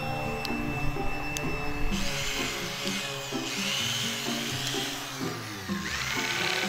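Corded Ryobi electric drill spinning a grinding stone bit against fibreglass (FRP), a steady whine that turns rougher and noisier about two seconds in as the stone bites, under background music.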